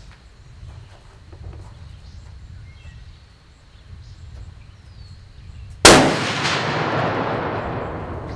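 A single shot from a high-velocity custom muzzleloading rifle about six seconds in: one sharp, very loud report followed by a long echo rolling away and fading over the next couple of seconds.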